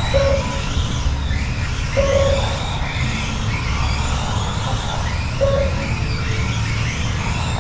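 Kyosho Mini-Z electric radio-controlled trucks racing, their small motors whining up and down as they accelerate and brake through the corners, over a steady low rumble. Three short beeps sound: near the start, about two seconds in, and about five and a half seconds in.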